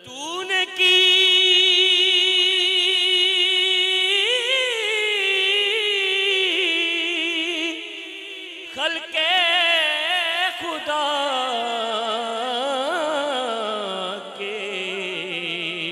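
A man singing a manqabat (Sufi devotional song) solo, holding one long high note for about four seconds, then moving into wavering, ornamented runs. There is a short break about eight and a half seconds in.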